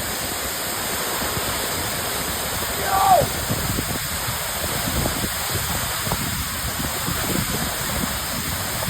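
Aber Falls waterfall: a steady, even rush of falling water. About three seconds in, a brief high call falls in pitch over it.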